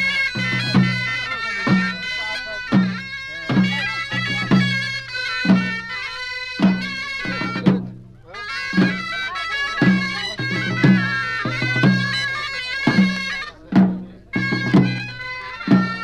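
Moroccan traditional folk music: a loud, reedy wind instrument plays a continuous, ornamented melody over regular drum strokes about twice a second, with short breaks in the phrase.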